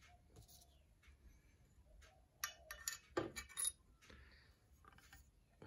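Thin metal washers clinking against the tops of a bicycle suspension fork's lowers as they are set back into the seal bores: a few light clinks and knocks, the loudest about three seconds in.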